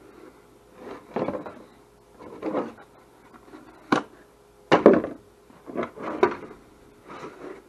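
Thin clear-plastic RC truck body being handled and turned over: a string of short rustling, flexing and rubbing sounds of the plastic shell, with a sharp click about four seconds in.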